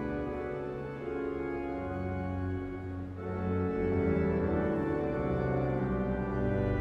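Church organ playing slow, sustained chords over a moving bass line, growing louder about four seconds in.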